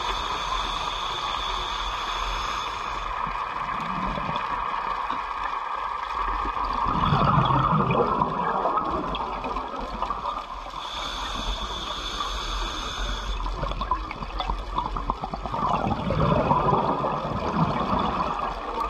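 Scuba diver breathing through a regulator underwater, heard through the camera housing, with two gurgling surges of exhaled bubbles about eight seconds apart.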